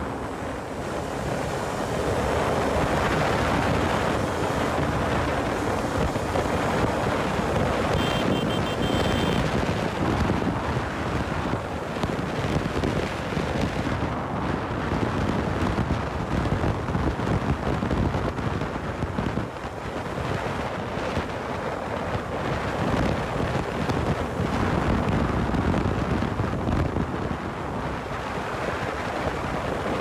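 Heavy wind buffeting the microphone of a motorcycle riding at about 100–110 km/h, with the engine and tyre noise underneath. The rush is steady and even, with no breaks.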